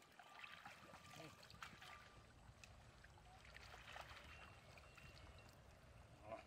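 Faint splashing and trickling of shallow muddy water as a plastic basket is dipped and scooped through it, with small scattered clicks.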